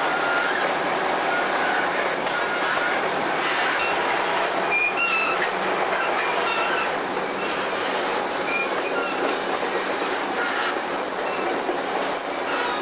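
Moving train heard from aboard, just behind the diesel locomotive: a steady rumble and clatter of wheels on the rails, with short high-pitched wheel squeals now and then, several of them about five seconds in.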